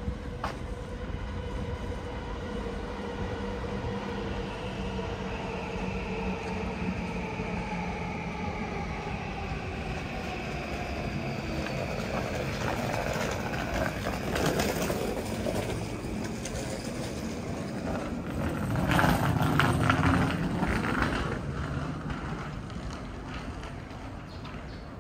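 Electric train at the station: a motor whine that slowly falls in pitch as the train slows, then a louder rumble of rolling wheels that peaks about three-quarters of the way through and dies away.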